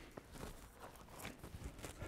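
Faint footsteps and light handling sounds, a few soft knocks and clicks, as a cordless circular saw is taken up off a plywood sheet before it is started.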